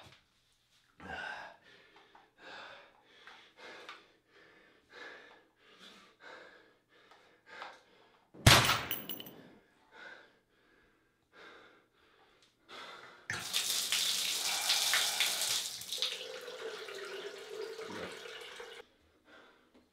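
Ragged, heavy breathing in short repeated breaths, broken by one loud thump about eight seconds in; then a shower mixer tap turned on, water running and splashing for about five seconds as it is scooped onto a face, before it is turned off.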